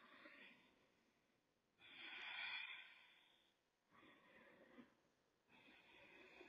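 Faint, slow breathing: four soft breaths one after another, the second the loudest, in time with a seated torso circle.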